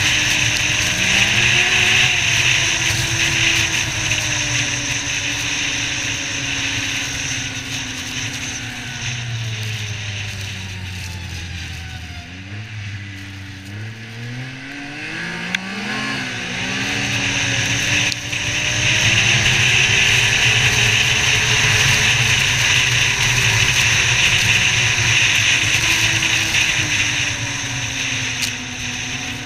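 Yamaha Viper XTX snowmobile engine running at trail speed under a strong rushing hiss. About halfway through it eases off, the engine note sinking and quieting, then it accelerates again, pitch climbing back up to a steady cruise.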